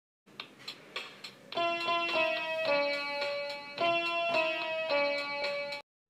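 Short instrumental intro jingle: a few soft ticks, then a melody of sustained notes that stops abruptly just before the end.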